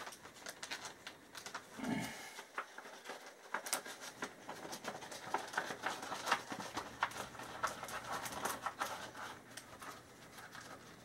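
Close handling of a paper DVD insert and label: light rustling and many small ticks and clicks, with a brief low breathy sound about two seconds in.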